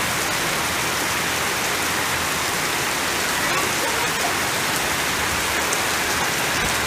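Heavy rain pouring steadily onto waterlogged dirt ground and garden plants, a dense, even hiss.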